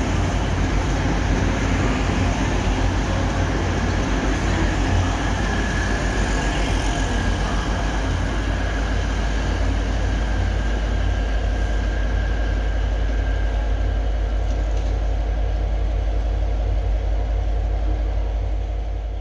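East Midlands Railway Class 180 diesel multiple unit running past, its underfloor diesel engines droning over wheel and rail noise, steady and loud; it eases a little near the end.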